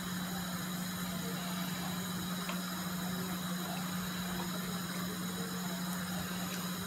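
Pot of broth at a boil, a faint even bubbling hiss over a steady low hum, with a few faint knocks of a wooden spoon in the pot.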